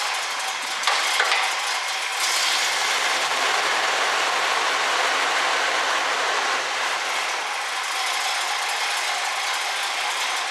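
1967 Chevrolet Camaro engine idling steadily with the hood up, heard as a dense mechanical clatter, with a couple of sharp clicks about a second in.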